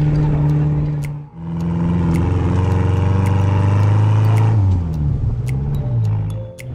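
Vehicle engine running steadily, broken by two abrupt cuts. Its pitch drops about two-thirds of the way through as it slows.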